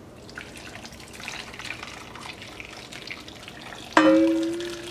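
Beef broth poured from a stainless steel saucepan into a braiser of lamb shanks and vegetables, trickling and splashing. About four seconds in, the saucepan clanks against the braiser and rings briefly.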